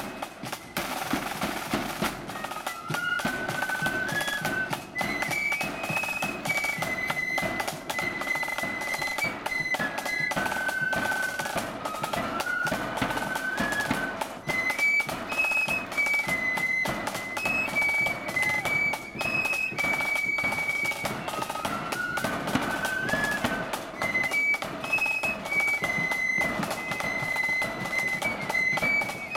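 Marching flute band playing a tune: flutes carry a stepping melody in unison over a steady beat of bass drum, drums and clashing hand cymbals.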